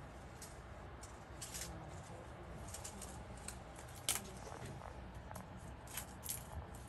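Acupuncture needle packets being opened and handled: faint crinkling and scattered small clicks, with one sharper click a little after four seconds in.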